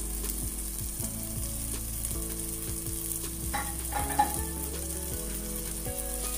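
Spiced onion-tomato masala with peas and freshly added curd sizzling in the pan as it is stirred, with one sharp knock about four seconds in.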